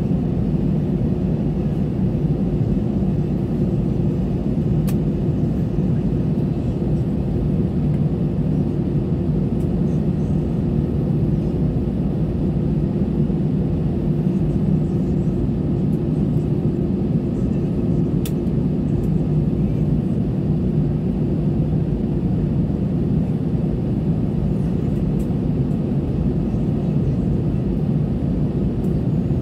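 Cabin noise of an Airbus A320-214 taxiing, its CFM56-5B engines at idle: a steady low drone with a constant hum in it.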